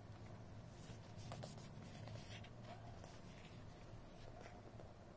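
Faint scratching and rubbing of fingers handling a cardboard product box, a few short strokes over a low hum of room tone.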